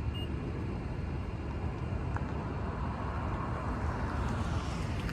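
Steady low background rumble with a light hiss and no distinct event: outdoor ambient noise of the kind distant road traffic makes. A brief faint high tone sounds right at the start.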